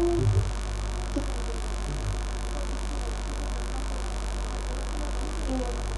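Steady low electrical mains hum with a faint hiss underneath.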